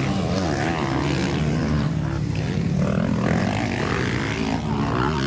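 Motocross dirt bike engines revving hard during a race, several engine notes overlapping with pitch rising and falling as the riders work the throttle.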